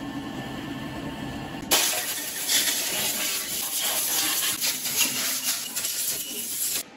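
Compressed-air blow gun hissing hard as it blows out the bare cylinder block of a Scania DC16 V8, starting abruptly about two seconds in and cutting off just before the end. A low workshop hum comes before it.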